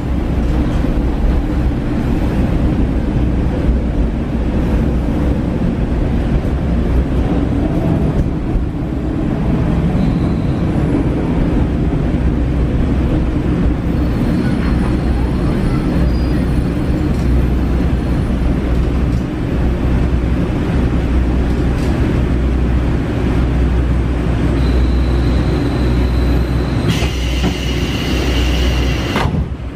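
Interior running sound of a JR Shikoku KiHa 40 diesel railcar: a steady low diesel drone under the rumble of the wheels on the rails. Near the end a thin high squeal and a brighter hiss come in for a few seconds as the railcar nears the next station, then the sound drops off suddenly.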